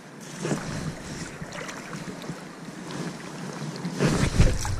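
River water lapping and moving around a wading angler, with wind buffeting the microphone; the wind gets louder about four seconds in.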